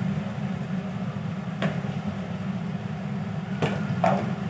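A steady low hum, with a few faint clicks scattered through it.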